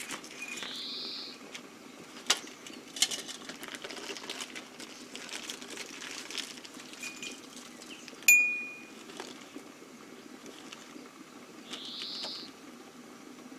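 Cups and a tea tin clinking as they are set down on a table, the loudest a sharp clink with a brief ringing a little past halfway. Under it a samovar boils steadily, and a bird calls twice.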